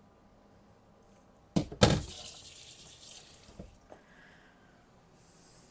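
Two sharp clanks, then a rush of liquid being poured that fades out over about a second and a half. The liquid is watery ginger juice.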